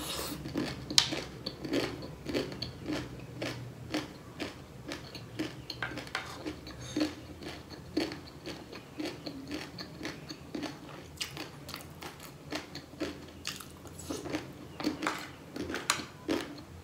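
Crunchy chewing of a mouthful of piro chatpatey, a spicy Nepali snack mix of crushed dry noodles and puffed rice: a run of crisp, irregular crunches a fraction of a second apart.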